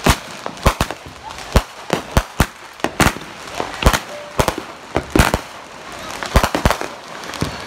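Fireworks going off in quick, irregular succession: sharp bangs of aerial shells and firecrackers, several a second, over a steady crackling hiss.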